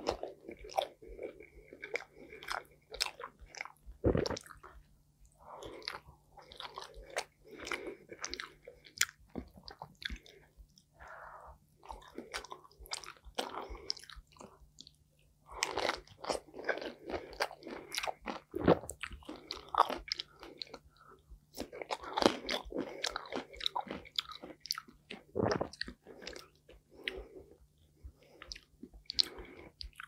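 Close-miked biting and chewing of a stuffed bell pepper (dolma), with wet mouth clicks and smacks as the soft pepper and its filling are eaten. A faint steady low hum runs underneath.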